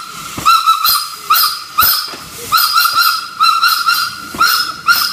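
Steam locomotive pulling away with steam hissing from its cylinder drain cocks, and short high squeaks coming in quick clusters of two or three about every half second.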